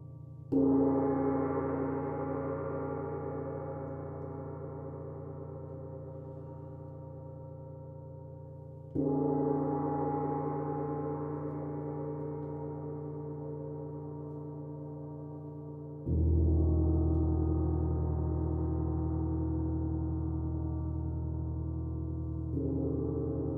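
A gong struck four times, about every seven seconds. Each stroke rings on with many steady overtones and fades slowly until the next.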